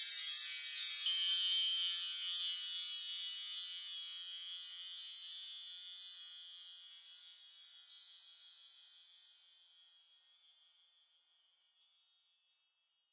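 High chimes shimmering: many tinkling notes sounding together, then ringing out and fading slowly away over about ten seconds. A few faint pings come near the end.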